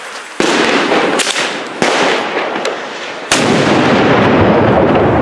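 2.5-inch salute shells (big nuts) exploding on the ground: three loud bangs about a second and a half apart, each echoing on afterwards. The third bang is the loudest.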